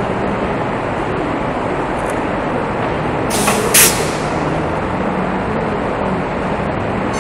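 Steady, loud machinery noise with a low hum, and a short sharp hiss of air about three and a half seconds in.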